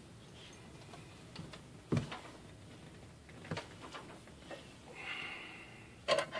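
Scattered knocks and clicks of equipment being handled on a workbench, with a brief faint squeak about five seconds in and a quick double knock near the end.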